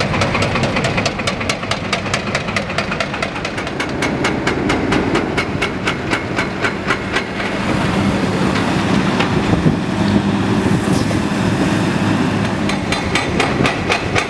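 Excavator-mounted hydraulic breaker pounding a concrete viaduct ramp with rapid, even blows, several a second. About halfway through the blows become less distinct and a steady low hum comes up underneath.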